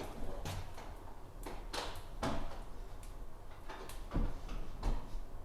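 Wood fire crackling and popping in the firebox of a cast-iron wood stove, with irregular sharp snaps every half second or so. The fire is burning hard, the flue damper and air inlets open.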